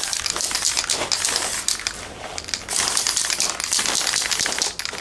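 Aerosol spray can hissing in several bursts as the inside of a steel helmet is spray-painted olive green, with a lull about two seconds in.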